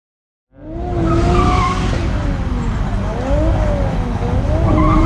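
Car tyres squealing as a BMW spins donuts, the squeal wavering up and down in pitch over a steady low rumble. The sound starts abruptly about half a second in.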